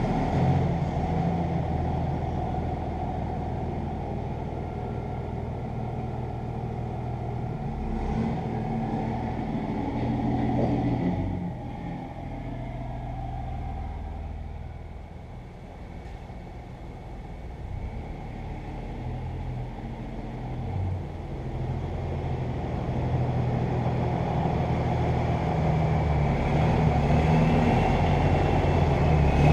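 Ram heavy-duty pickup's Cummins diesel engine running, fading in the middle and then growing louder near the end as the truck drives in.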